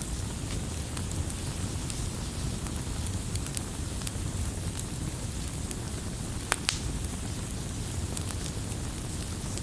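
Wood fire burning steadily, a low rush of flame with scattered crackles and pops from the burning firewood, the loudest two pops coming close together about six and a half seconds in.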